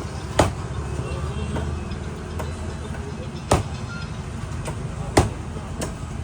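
A heavy knife chopping through a red snapper on a cutting block: three sharp strikes with a few lighter ones between, spaced a second or more apart, over a steady low rumble of traffic.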